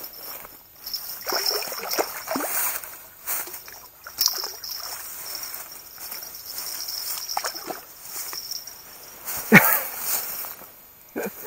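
A freshly landed burbot thrashing at the water's edge: splashing, then irregular rustling and scraping in dry grass as it is grabbed and handled, with a sudden loud thump about nine and a half seconds in.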